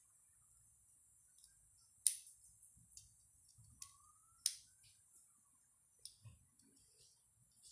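Plastic Lego pieces clicking as wheels are pressed onto a small Lego car: scattered sharp clicks, the loudest about two seconds in and again about four and a half seconds in.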